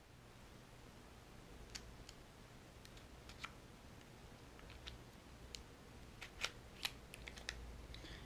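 Faint, scattered small clicks of a Daiwa Laguna baitcast reel's parts being handled as a piece is unscrewed and taken off, a few at first and coming more often after about six seconds.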